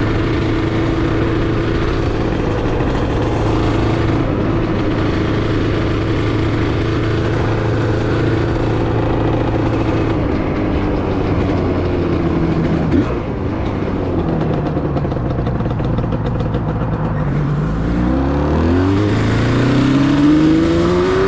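1985 Yamaha RZ350's two-stroke parallel-twin engine running as the bike is ridden, holding a steady pitch at first, then falling as the throttle is rolled off about halfway through. Near the end it revs up in several rising pulls, accelerating through the gears.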